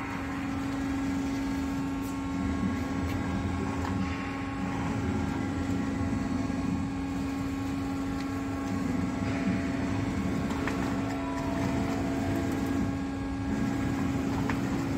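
Gildemeister NEF CT 40 CNC lathe running idle, not cutting: a steady electric machine hum with one constant low tone, and a few faint clicks.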